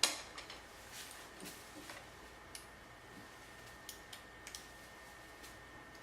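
Bike U-lock being handled: a sharp click right at the start, then scattered light clicks and taps of the lock's metal parts and release mechanism.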